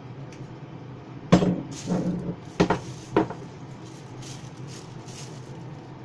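Kitchenware clinking and knocking against a bowl: four sharp clinks with a short ring, each about half a second to a second apart, then fainter light rattles.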